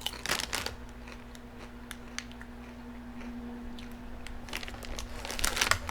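A person biting into a crunchy potato chip, a burst of sharp crunches about half a second in, then chewing with scattered small crunches and another run of crunching near the end.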